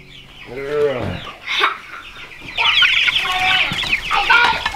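Young chicks peeping in a brooder: many short, high peeps that thicken into a busy chorus about halfway through. A single knock sounds just after a second and a half.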